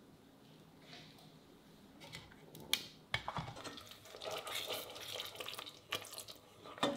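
After a couple of seconds of quiet, a wooden spatula knocks a few times against a stainless steel saucepan. From about four seconds in, melted butter crackles and sizzles while milk is poured in gradually and stirred.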